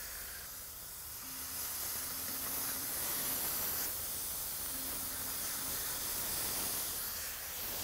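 Marinated beef burger patties sizzling steadily as they sear on a very hot griddle plate over charcoal.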